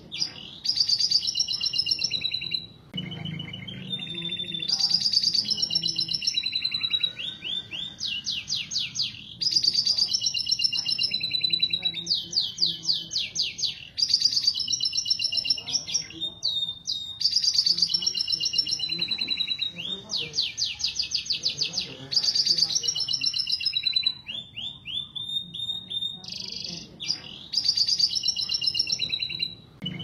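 Domestic canary mating song: a steady stream of high-pitched chirping phrases broken several times by long, very fast rolling trills of a second or two each, with short pauses between phrases.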